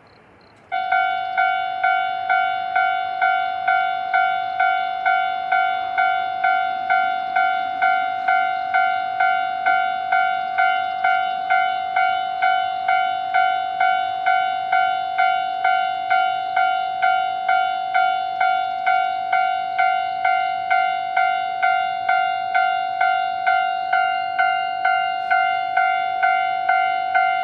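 Railroad crossing warning bell ringing, a steady ding-ding of about two strokes a second that starts just under a second in: the alarm sounding while the crossing is activated.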